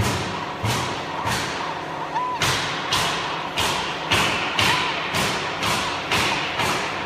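A steady, evenly spaced series of thumps, a little under two a second, each followed by a fading hiss, with a short high tone sounding now and then.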